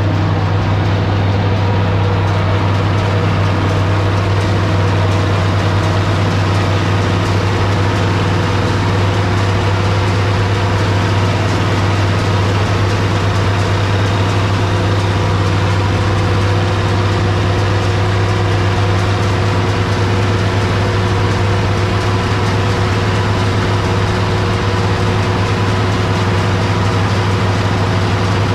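International 1256 tractor's six-cylinder turbo diesel running steadily under load, driving a New Holland 790 forage harvester that is picking up and chopping a windrow of sorghum-sudangrass into a chopper wagon. The sound holds at a constant pitch and level throughout.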